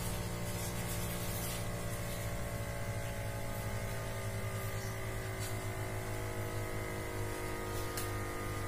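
Sinocare BA-823 blood pressure monitor's electro-pneumatic pump inflating the arm cuff: a steady motor whine made of several tones over a low hum, its pitch sinking slightly near the end.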